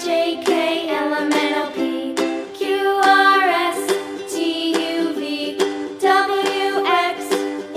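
Children's background music: a bright tune of plucked-string notes.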